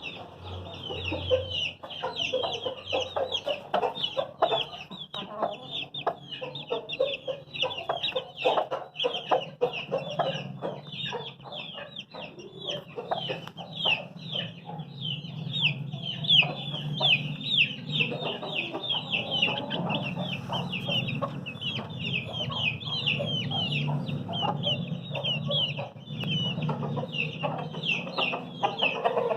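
Aseel chickens clucking, over a constant stream of quick, high cheeping calls. A low steady hum comes in about a third of the way through.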